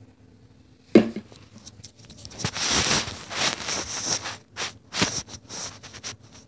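Handling noise of a phone being propped up against a book: a sharp knock about a second in, then rustling and scraping, and a few clicks near the end.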